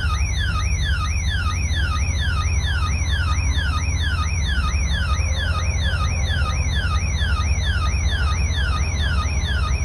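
Alarm.com security camera's built-in siren sounding: a loud electronic whoop sweeping up and down in pitch two to three times a second, with a strong low hum underneath.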